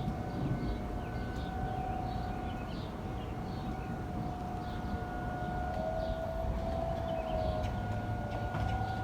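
Outdoor tornado warning siren sounding a steady tone during a tornado warning, with a second, slightly lower tone sliding in and out for a couple of seconds midway.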